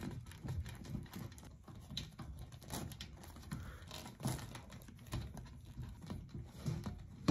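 Faint, irregular small clicks and rubbing of clear vinyl tubing being worked by hand around the rim of a stainless steel pot.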